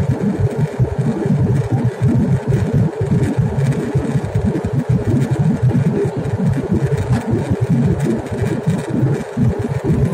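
Airliner cabin noise in cruise: the steady low roar of the jet engines and the airflow over the fuselage. It is heard through the window seat and has a rapid, uneven flutter in the rumble.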